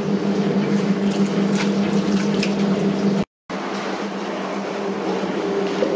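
Steady mechanical hum under a noisy wash of kitchen background, with a few faint clicks; the sound drops out completely for a moment a little past halfway, then the same hum carries on.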